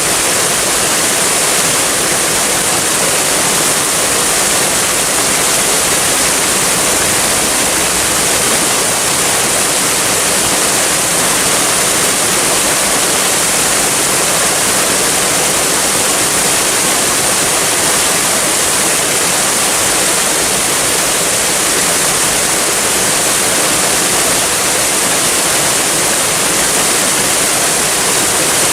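Waterfall rushing with a steady, unchanging hiss of falling water, strongest in the high range.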